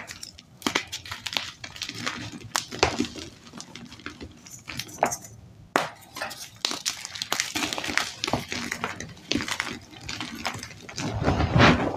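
Dyed gym chalk blocks crunching and crumbling as hands squeeze, break and rub them together, a run of irregular sharp cracks with a louder stretch of crunching near the end.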